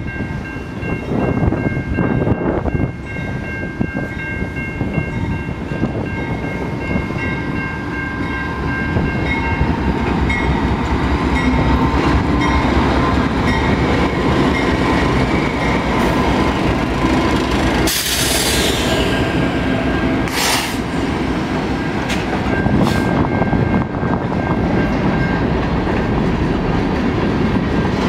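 A departing freight train: its two diesel locomotives, a GE C44-9W and an EMD SD70, run past at low speed and grow louder, then freight cars clatter over the rail joints. A steady high ringing tone lasts until about ten seconds in, and a sharp hiss comes about two-thirds of the way through.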